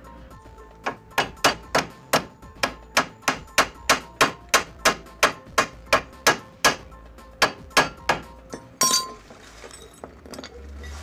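Hammer striking steel over and over, about three to four blows a second with a ringing metallic note, tapping the new ball joint home in the steering knuckle. One louder metallic clatter near the end.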